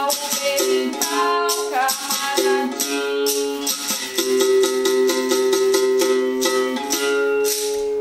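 Berimbau being played: the stick strikes the tyre-steel wire in a steady rhythm while the caxixi basket rattle shakes with each stroke, and the ringing note switches back and forth between two pitches as the coin (dobrão) is pressed against and lifted off the wire.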